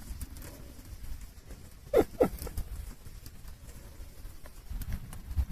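Small wood fire crackling, with scattered faint pops and clicks over a low rumble. Two short higher sounds come about two seconds in.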